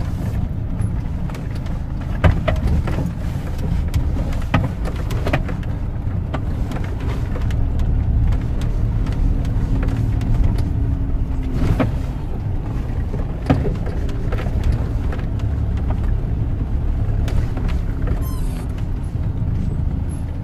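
Inside a Troller 4x4 driving slowly over a rough, eroded dirt track: a steady low rumble of engine and road, with sharp knocks and rattles from the bumps every few seconds.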